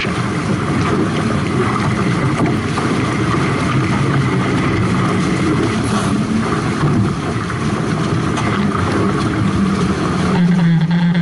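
Wind buffeting the action camera's microphone mixed with water rushing and spraying past the hulls of a Hobie 18 catamaran sailing fast, a steady loud rush that swells a little near the end.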